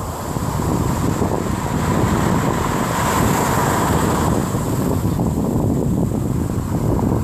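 Ocean surf with wind buffeting the microphone: a steady, heavy low rumble of waves that swells briefly about three seconds in.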